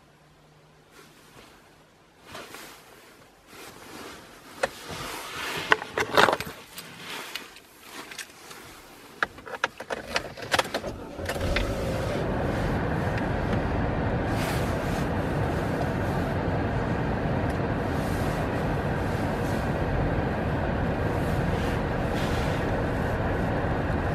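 Keys jangling and scattered clicks and knocks from handling things inside a car. About halfway through, a steady running noise from the car starts abruptly and holds.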